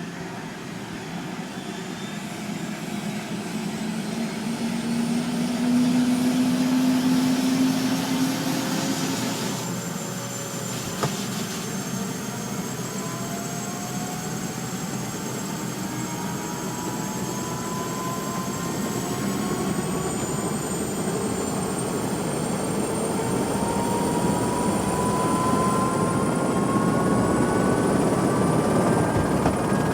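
Helicopter heard from inside the cabin: steady rotor and engine noise with several whining tones slowly rising in pitch, growing louder over the stretch. A single short click about eleven seconds in.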